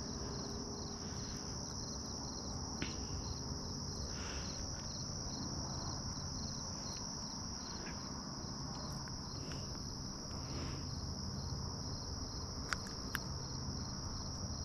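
Evening insect chorus: a steady high-pitched trill, with another insect pulsing in a regular rhythm a few times a second. A few sharp small clicks come through, one about three seconds in and two near the end.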